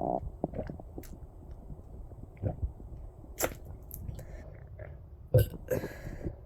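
Water being gulped from a bottle, close to the microphone: a string of swallows and wet mouth clicks, the loudest about five and a half seconds in.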